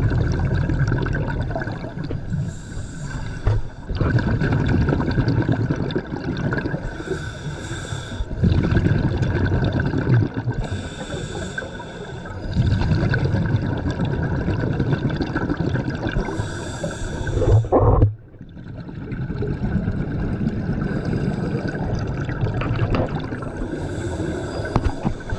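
Scuba diver breathing through a regulator underwater: a hiss on each inhale, then a low rumble of exhaled bubbles, repeating about every four to five seconds. About two-thirds of the way through, a louder burst cuts off suddenly into a brief lull.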